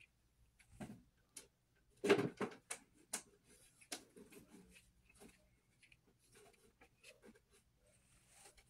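Prismacolor Premier colored pencils clicking and shifting against each other in their metal tin as fingers run over them: scattered light clicks, with a louder clatter about two seconds in.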